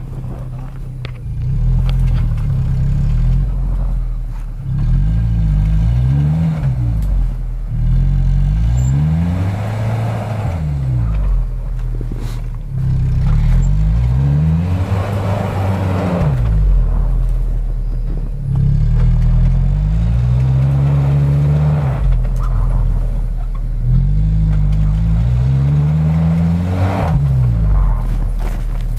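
Off-road SUV engine revving up and down again and again under load, with a hiss of wheels spinning during the high-rev peaks. The vehicle is struggling for traction on a steep snowy climb and is close to sliding sideways into the ditch.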